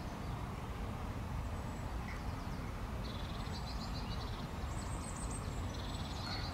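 Small songbirds singing in short, rapid trills with a thin high whistle, over a steady low outdoor rumble.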